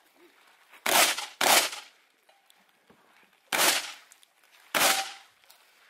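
Four shotgun shots fired on a practical-shooting course: two in quick succession about a second in, then single shots about two seconds and a second and a quarter apart, each with a short echoing tail.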